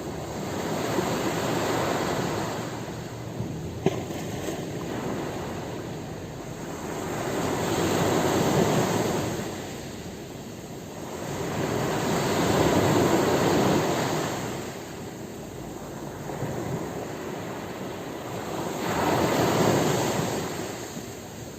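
Ocean waves breaking on a beach: the surf noise swells and falls back four times, roughly every five to six seconds. A brief sharp click about four seconds in.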